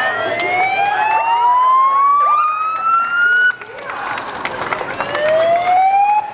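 Emergency vehicle siren sounding a slow rising wail: it climbs steadily in pitch for about three and a half seconds, cuts off suddenly, then starts climbing again near the end. Crowd voices can be heard faintly underneath.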